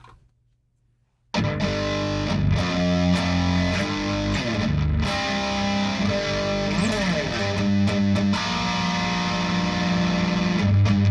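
Heavily distorted electric guitar playing chugging riffs and sustained chords through the This Heavy Earth Black Mass preamp pedal in its high-gain voice, the internal max-gain trim pot turned all the way up. It comes in suddenly about a second in, with a pitch slide partway through.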